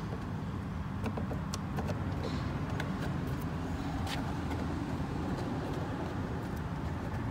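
A steady low vehicle engine rumble, with a few faint clicks from hands pulling at the door's fabric and net.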